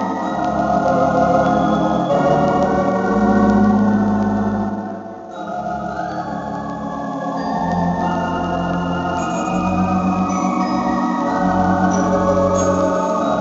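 Yamaha Tyros4 keyboard playing theatre organ music on samples of the Blackpool Tower Wurlitzer: sustained chords over changing bass notes, with a brief drop in loudness about five seconds in.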